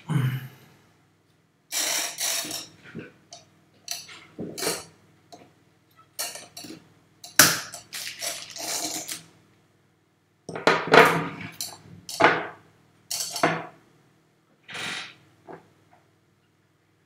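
Irregular short clicks, clinks and knocks of small hard objects being handled on a desk, some in quick clusters, with gaps of a second or so between them.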